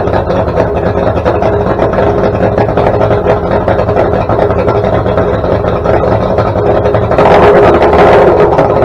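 1989 Mercury Black Max 150 XR4 two-stroke 2.4-litre V6 outboard running at idle after a cold start, with a rapid, even exhaust beat. About seven seconds in it is revved briefly, getting louder, then drops back.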